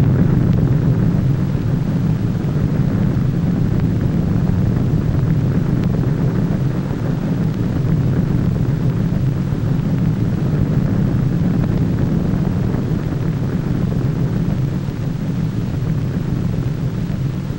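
Steady, loud, low rumbling roar of an atomic bomb blast and its rising cloud column, as a film sound effect, easing slightly near the end.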